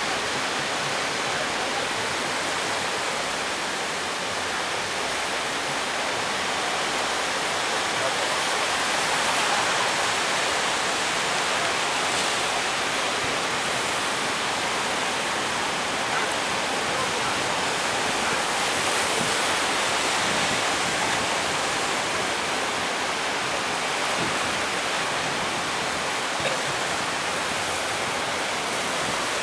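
Surf breaking on the shore: a steady, continuous rush of waves with no single crash standing out.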